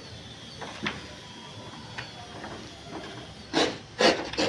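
A large sheet of stiff chart paper rustling and crackling as it is handled, with a few faint ticks and then three short, loud rustles in quick succession near the end.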